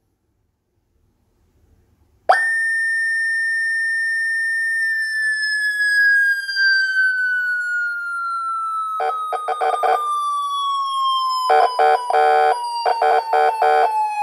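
A 20 W electronic motorcycle police siren switches on suddenly about two seconds in with a high steady wail tone, which then glides slowly and steadily down in pitch. Around nine seconds, and again from about eleven and a half seconds, rapid choppy blasts of a lower, buzzier tone cut in over the falling wail.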